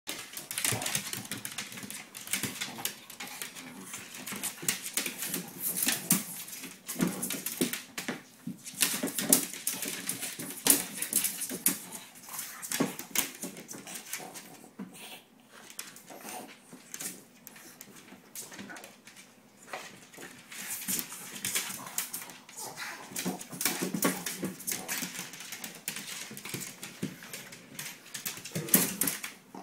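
Two Pekingese dogs fighting, with dog vocal sounds and scuffling in irregular bursts. The scrap is play that often turns into a real fight.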